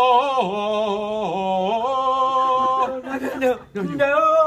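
A man singing a vocal warm-up in an operatic voice: a few long held notes with vibrato, stepping down and back up, then a short gap and a second sung phrase near the end.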